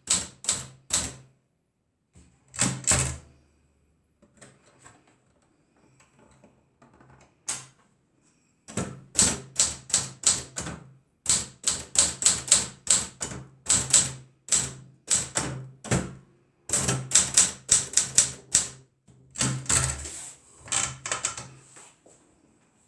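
Adler Gabriele 10 manual typewriter being typed on: sharp keystrokes in quick runs. After a few strokes there is a pause of a few seconds with only faint clicks. From about nine seconds in, steady typing goes on at about four keystrokes a second, with short breaks.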